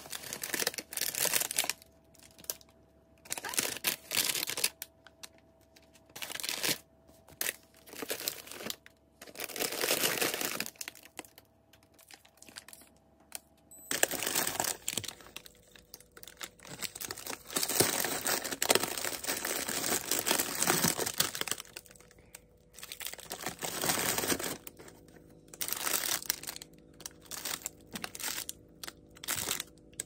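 Plastic packets of frozen food crinkling and rustling in irregular bursts of a second or two as a hand shuffles and lifts them in a freezer drawer.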